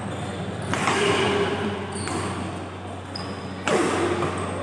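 Badminton rackets striking a shuttlecock in a rally, sharp smacks echoing in a large hall. The two loudest hits come about a second in and near the end, with a weaker one between.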